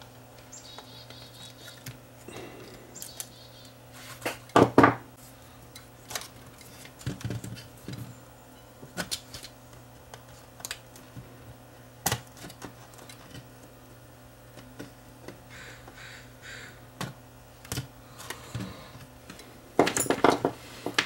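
Small hand tools clicking and tapping on a camcorder circuit board as a capacitor is cut out and replaced, with scattered sharp clicks, two louder bursts of clatter about four and a half seconds in and near the end, over a steady low hum.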